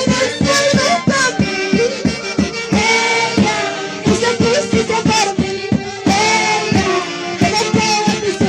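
An Andean orquesta típica playing folk dance music: held melody lines over a steady beat of about three strokes a second.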